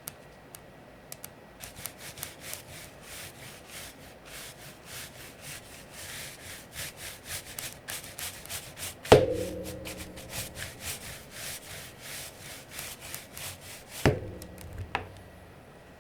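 A brush scrubbing the exposed switches and plate of an Aula F99 Pro mechanical keyboard with its keycaps off, in quick scratchy strokes, several a second. A hollow knock with brief ringing comes about nine seconds in, and a smaller knock near the end.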